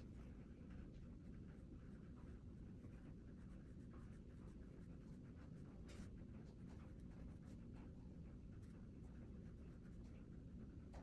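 Near silence with faint scratching of a fine watercolour brush stroking paint onto hot-press watercolour paper, one stroke a little louder about six seconds in.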